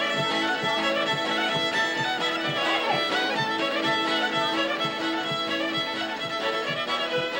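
Fiddle music with a steady beat.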